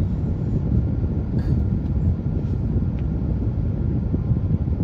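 Steady low rumble of vehicle noise, with a faint tick about three seconds in.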